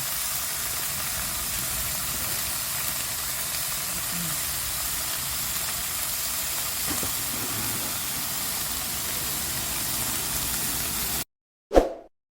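A steady, even hiss that cuts off suddenly near the end, followed by a brief silence and one short plop-like pop.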